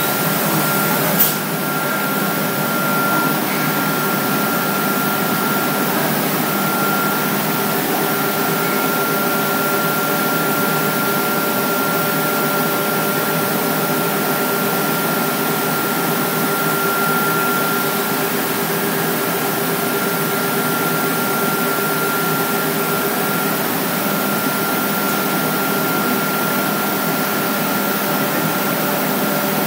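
Homag CNC machine running steadily: an even mechanical noise with a few steady hum tones through it, and a single sharp click about a second in.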